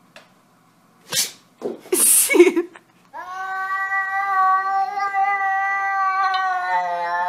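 Two short bursts of noise, the second louder, then a frightened domestic cat's long, low, drawn-out yowl, held steady for about four seconds and wavering slightly near the end.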